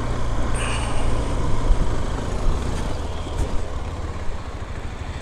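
Motorcycle engine running steadily at low speed as the bike rides up off a dirt track onto tarmac.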